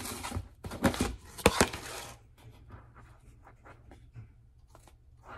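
Screw-on lid of a large plastic tub being twisted open: a rough plastic scraping for about two seconds, with a sharp click about one and a half seconds in. This is followed by faint small clicks and rustles as a hand reaches into the open tub.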